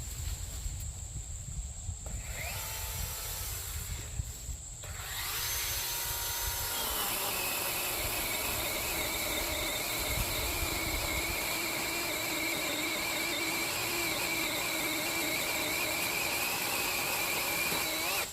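A power tool's motor spins up, rising in pitch, then runs at a steady high speed with a slightly wavering whine. It stops just before the end.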